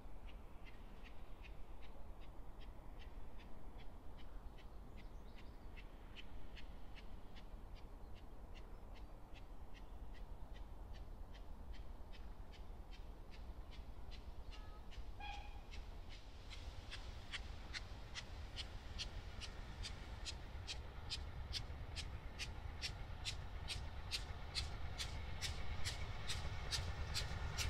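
Distant steam locomotive working towards the listener, its exhaust beats in an even rhythm of about three a second, faint at first and growing steadily louder from about halfway through.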